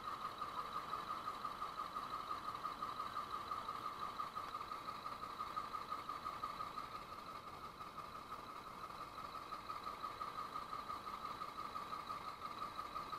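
An engine idling steadily, with a constant hum that dips slightly in level partway through.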